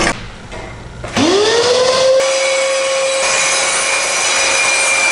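Hand-held electric saw starting up about a second in, its motor whine rising quickly in pitch and then holding steady as it cuts old reclaimed wooden boards.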